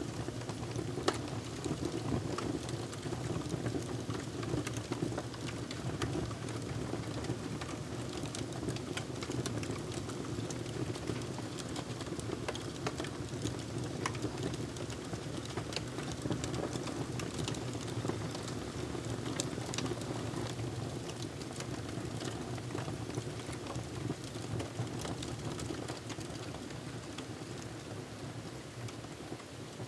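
Wood fire crackling: irregular sharp pops and snaps over a steady low rushing of the burning logs, easing off slightly near the end.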